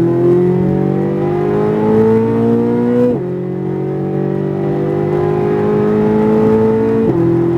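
Corvette Z06 V8 at full throttle, pitch climbing steadily through the gears. It drops sharply at two upshifts, about three seconds in and again about seven seconds in.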